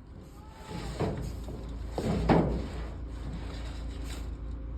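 A vehicle engine running low and steady as it creeps forward, slowly pulling the well pump's pipe up out of the well, with two brief noises about one and two seconds in.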